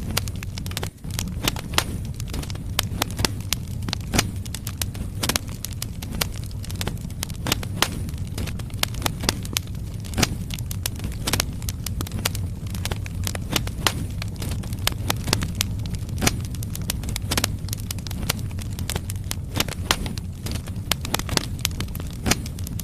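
Firewood burning in a fireplace, crackling with frequent irregular sharp pops over a steady low rumble.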